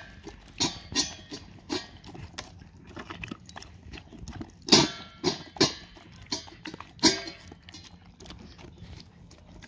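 Dog eating dry kibble and wet food from a stainless-steel bowl: irregular crunches and clicks of chewing and of food against the metal, a few louder ones around the middle.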